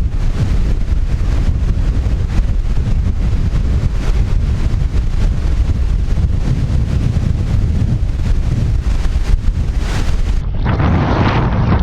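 Strong wind buffeting the microphone in a loud, steady rumble, gusting an 18 mph northeast wind; the sound changes abruptly about ten seconds in.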